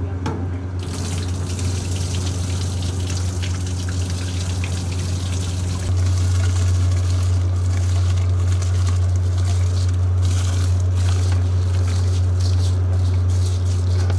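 Rice being washed by hand in a steel bowl: water sloshing and trickling, then wet grains scraping and clicking against the metal as the rice is tipped out. A steady low hum runs underneath and gets louder about six seconds in.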